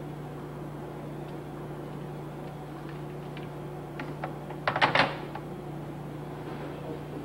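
Steady low hum throughout. About four seconds in comes a few light clicks, then a short plastic clatter near five seconds as a corded telephone handset is put back on its hook.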